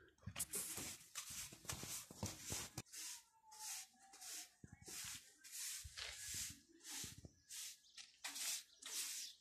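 Footsteps scuffing on gritty concrete, about two to three steps a second.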